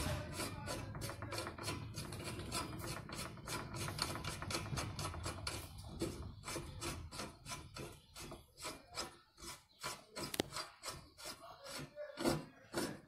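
Threaded upper headset cone being spun by hand down the threaded steerer of a bicycle fork: a rasping rub of the threads, repeated in quick strokes that turn sharper and more separate in the second half.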